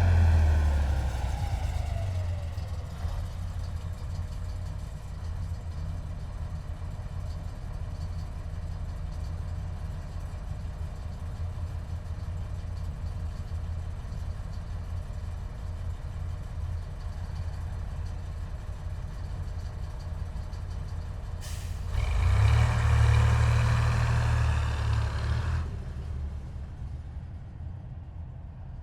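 Heavy military vehicles driving past. One goes by at the start, its engine note falling as it moves away, and then a steady low engine rumble carries on. A short hiss comes just before another heavy vehicle passes close by for a few seconds, and the sound then fades.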